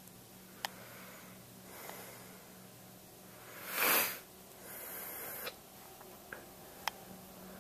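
A person breathing noisily close to the microphone, in several hissing breaths or sniffs, the loudest about four seconds in. A few sharp clicks fall between the breaths, over a faint steady low hum.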